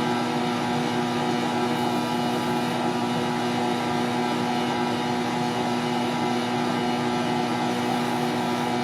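A machine or motor running at a steady speed: an even, unchanging drone with a fixed pitch.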